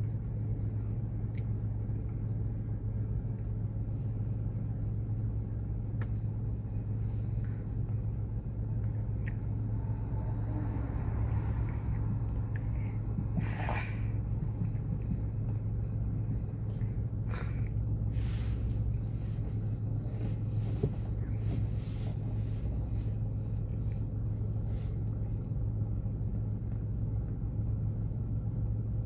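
Steady low rumble of cars idling in a queue at a level crossing. About halfway through, a Stadler passenger train crosses, adding a brief swell of rail noise that rises and fades.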